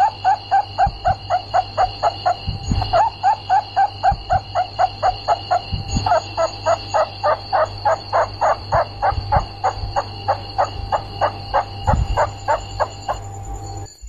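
Rats squeaking: a fast run of short, rising squeaks, about four a second, with two brief breaks, over a steady high-pitched ringing and a low hum.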